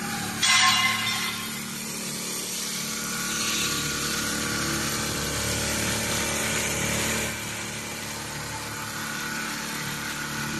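Mattress-making machinery running steadily with a mechanical hum, getting louder from about three to seven seconds in, with two short, loud hissing bursts, one about half a second in and one at the very end.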